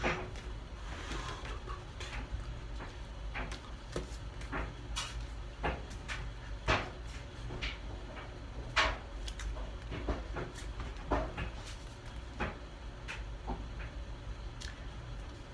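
Irregular soft taps and clicks of hands striking and brushing against each other and the body while signing, over a steady low hum.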